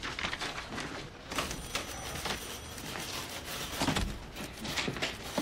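A man walking out through an office door: footsteps and small clicks, with a low thump about four seconds in.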